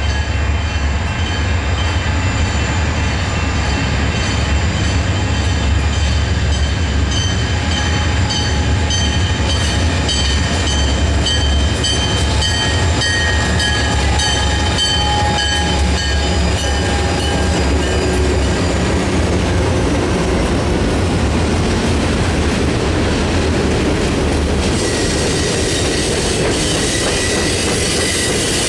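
Diesel freight train passing close: the locomotives' engines give a heavy low rumble, and the cars' wheels clack in an even rhythm over the rail joints. Steady high-pitched wheel squeal runs through the first two-thirds and fades out.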